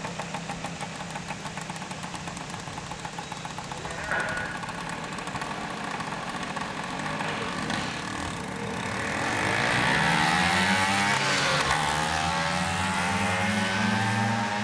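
Two-stroke racing scooter engine running steadily at low revs, then revving hard about two-thirds of the way through, its pitch climbing and staying high as it pulls away down the drag strip.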